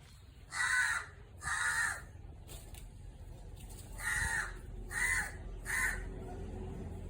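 A crow cawing: five harsh caws, two about a second apart, then three more in quicker succession a couple of seconds later.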